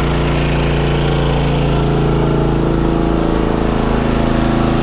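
Westinghouse iGen 4500 DF dual-fuel inverter generator running steadily, its engine note shifting slightly about two to three seconds in.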